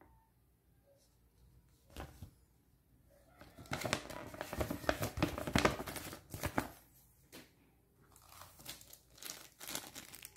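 Paper instruction sheet rustling and crinkling as it is handled and folded, loudest from a few seconds in; then a small clear plastic zip bag crinkling in the hands near the end.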